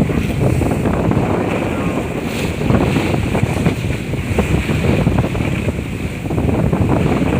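Steady, loud wind buffeting the microphone, a rough fluttering rumble, mixed with the wash of water.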